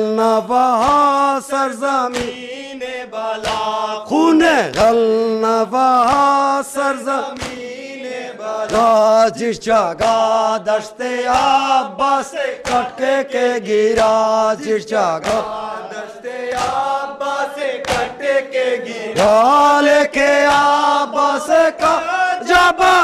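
Group of men chanting a Muharram mourning lament (noha) together, with sharp slaps of hands striking chests (matam) about twice a second in time with the chant.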